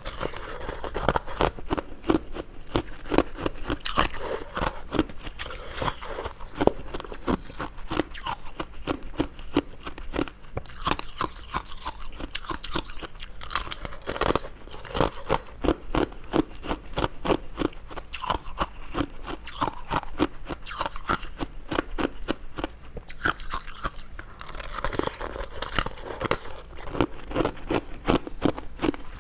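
Ice being bitten and chewed close to the microphone: a continuous run of crisp crunches, several a second.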